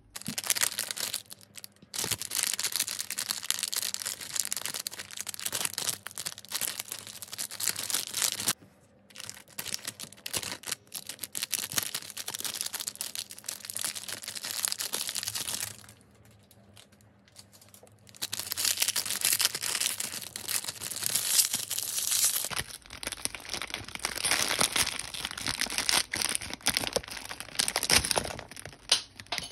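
Foil-lined plastic Lego minifigure blind-bag packet crinkling and tearing as it is opened and rummaged by hand, with two short pauses.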